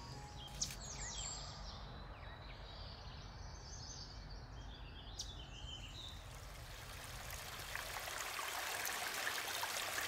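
A few high bird chirps over a faint steady rush of water, then a small creek trickling over stones grows louder in the last few seconds.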